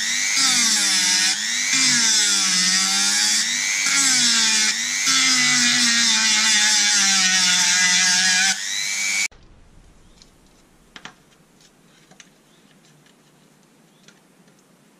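Dremel rotary tool running at high speed, grinding at the steel rivet of a pair of scissors; its whine dips in pitch and recovers repeatedly as the bit bites and eases off. It cuts off suddenly about nine seconds in, and a few faint clicks and taps of the scissors being handled follow.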